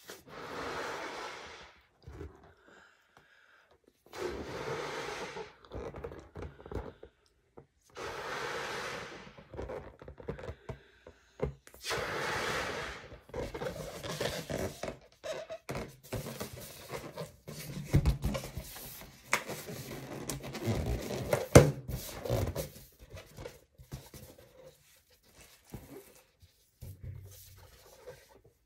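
A person blowing up a latex balloon in four long breaths, then handling and rubbing the inflated balloon, with scraping, rubbing and a few sharp thunks on the latex.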